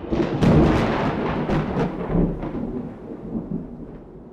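Deep thunder-like rumble with crackling cracks, starting suddenly and fading away over about three seconds.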